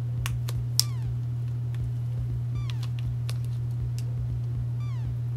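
White plastic fork clicking and scraping against a paper instant-noodle cup while stirring and lifting noodles, with a few short falling squeaks, over a steady low hum.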